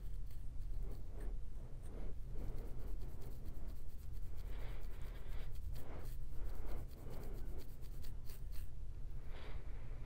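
Metal pin tail of a rat-tail comb scratching across a dandruff-flaked scalp between parted coils of hair: a fine, dry scraping that comes in quick runs, thickest a little past the middle. A steady low hum runs underneath.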